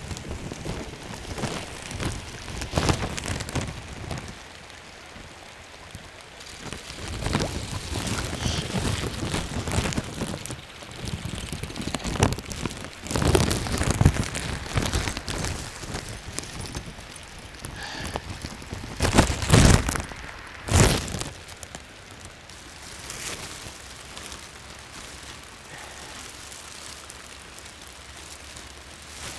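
Steady rain falling, with irregular louder bursts of noise, the loudest a cluster about twenty seconds in.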